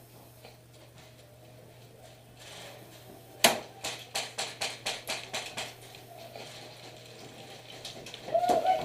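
Airsoft gun firing a rapid string of about fifteen shots, roughly six a second, starting about three and a half seconds in and stopping a couple of seconds later.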